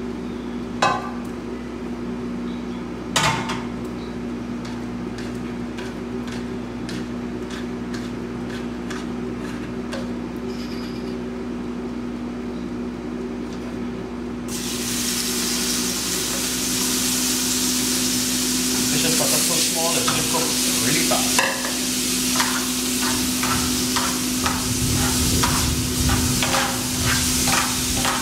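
Pieces of snook fillet go into hot olive oil in a frying pan about halfway through, starting a loud, steady sizzle, and a few seconds later a spatula stirs and scrapes them in the pan with quick clicking strokes. Before the sizzle there is only a steady low hum and two sharp knocks in the first few seconds.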